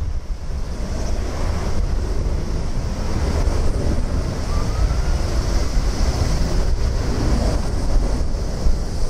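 Boeing 767 freighter's jet engines at takeoff thrust during the takeoff roll, a steady roar with a high hiss, mixed with heavy wind buffeting on the microphone.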